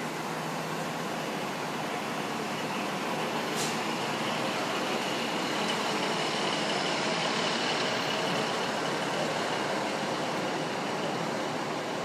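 Class 153 diesel railcar standing at the platform with its underfloor Cummins diesel engine idling, a steady running noise with a faint low hum. About three and a half seconds in comes one brief, sharp high sound, and a faint steady high tone runs through the middle.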